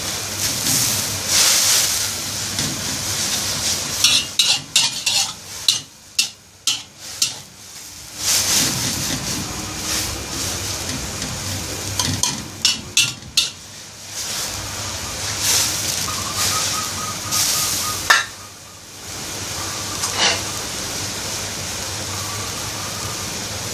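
Instant noodles blanching in hot water in a steel wok: a steady bubbling hiss, with a metal spatula scraping and clacking against the wok in quick bursts while the noodles are stirred, most of all about four seconds in and again around twelve seconds in.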